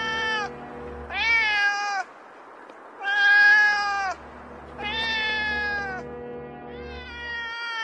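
A cat meowing over and over: long drawn-out meows of about a second each, roughly one every two seconds, each sagging slightly in pitch at its end.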